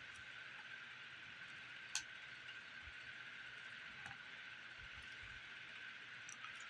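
Faint handling of a paperback graphic novel being flipped through: a sharp click about two seconds in, then a few fainter ticks and soft thumps over a steady background hiss.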